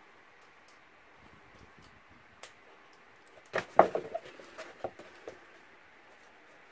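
Kraft cardstock being trimmed with a snap-off craft knife and handled on a cutting mat: faint scraping, a single click, then a short cluster of taps and clicks about three and a half seconds in, the loudest sounds here.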